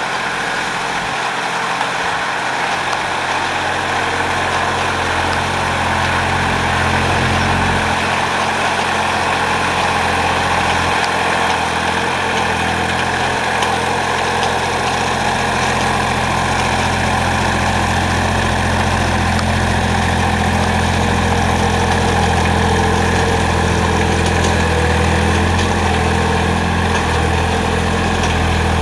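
Carraro 3800 HST compact tractor's engine running steadily under load as it pulls a subsoiler through the soil.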